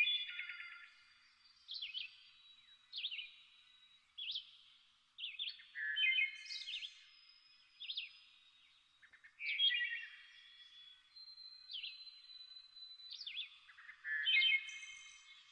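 Songbirds singing and calling, several voices overlapping, with a new short phrase every second or two: quick sweeping notes and stuttered runs of chirps.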